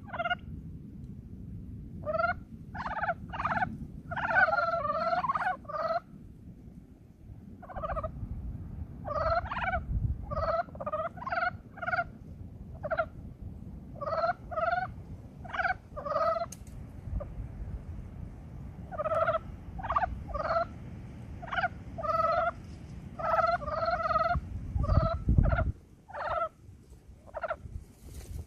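Korean mountain frogs (brown frogs) giving their early-spring breeding calls: short croaks, singly and in quick runs of two to four, with several frogs overlapping at times. A steady low rumble sits underneath.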